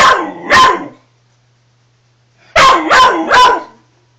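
Spaniel barking at an unfamiliar toy it is wary of: two barks at the start, then three quick barks about two and a half seconds in.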